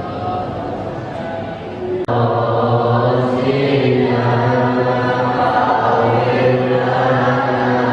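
Several voices chanting together in a sung religious chant. About two seconds in there is a sudden cut to a louder, fuller passage over a steady low held note.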